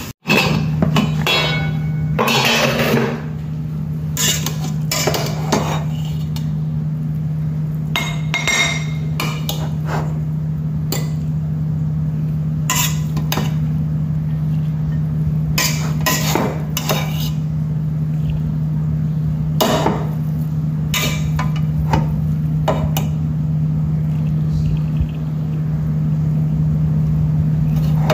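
Pots, lids and utensils clinking and knocking now and then in a kitchen, over a steady low hum.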